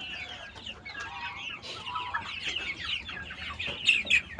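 A flock of kampung chickens clucking and calling, many short calls overlapping, with a couple of louder calls near the end.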